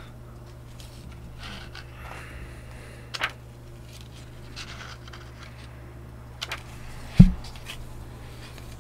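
Pages of a paper booklet being handled and turned, heard as faint rustles, scrapes and a few small clicks, with a dull thump about seven seconds in, over a steady low hum.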